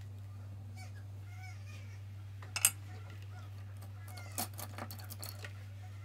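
Sharp clicks and taps of a paintbrush being handled and laid down against the palette: one louder click about two and a half seconds in, then a cluster of small taps. A steady low hum runs underneath.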